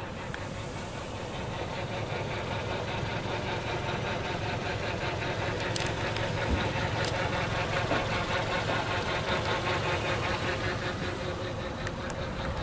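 Kia Ceed's 1.4-litre 16-valve four-cylinder petrol engine idling steadily with a fine, even ticking, growing a little louder over the first few seconds.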